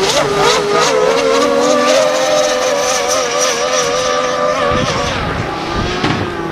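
Fuel-powered RC model speedboat running flat out, its small combustion engine giving a high, steady note that wavers as the boat turns, then fades about five seconds in as it runs away.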